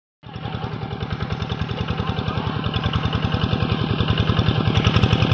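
Rice-field tractor engine running with a steady, fast, even chugging beat. It starts about a quarter second in and grows slightly louder.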